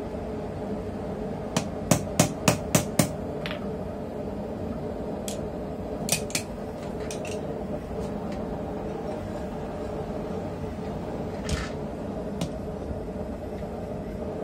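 Hammer blows on a small stump anvil: a quick run of six ringing strikes about a second and a half in, then scattered single strikes, over a steady background noise.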